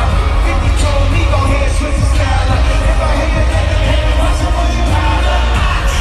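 Live concert music played over a stadium sound system: a heavy, booming bass with vocals over it.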